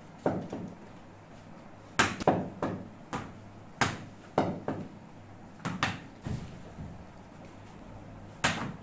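About a dozen sharp knocks of a cricket bat and ball in a small room, some coming in quick pairs, each with a short echo.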